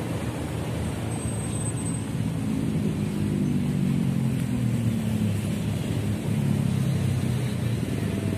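Road traffic: a passing motor vehicle's engine drops slowly in pitch over a few seconds, over a steady low traffic rumble.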